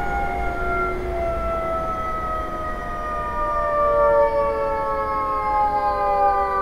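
Recreated running sound of a Shin-Keisei 8900 series train with a Mitsubishi IGBT-VVVF inverter and induction motors, heard while it brakes. Several whining tones from the inverter, motor and gears fall steadily in pitch together as the train slows, over a low rumble.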